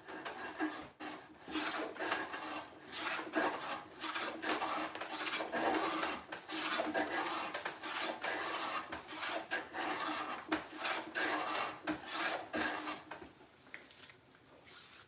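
Metal bench plane (a No. 4) shaving quarter-sawn hard maple in repeated rasping strokes along the grain, taking shavings from a drawer side to fit it. The strokes die away near the end.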